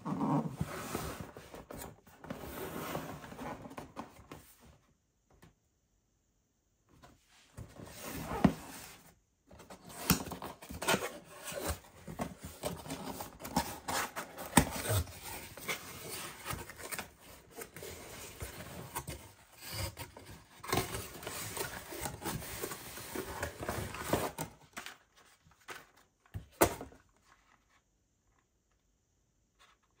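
Cardboard gift box being opened and its contents handled by hand: rubbing and scraping of cardboard flaps with small clicks and knocks of packaging, in two long stretches with a pause around five seconds in and a stop near the end.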